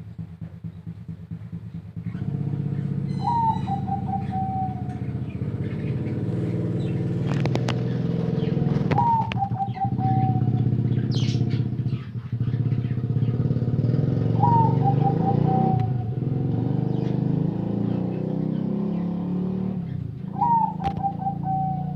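Zebra dove cooing four times, about every five to six seconds: each call is a rising note followed by a quick stutter of falling notes. A loud, steady engine drone runs underneath and grows louder about two seconds in.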